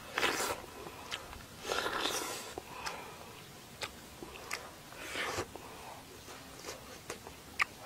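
A person eating grilled fish: mouth-close chewing and biting with short crisp clicks, broken by three breathy puffs blown out through the lips.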